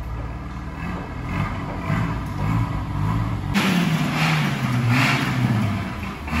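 Tofaş car engine running and revving through its aftermarket 'pırpır' exhaust, its pitch rising and falling. About three and a half seconds in, a sudden louder rush of noise comes in over it.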